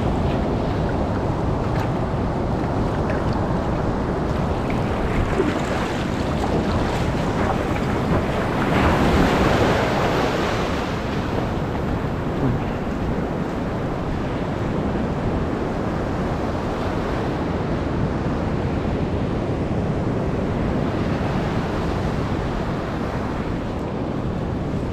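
Surf breaking on the shore of a rough sea, with wind buffeting the microphone; one wave swells louder about nine seconds in.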